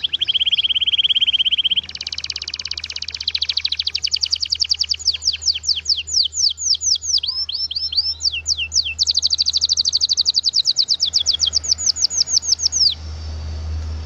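Domestic canary singing a long rolling song: fast even trills alternating with runs of repeated downward-sweeping notes, each phrase lasting a few seconds. The song breaks off near the end, leaving a low steady hum.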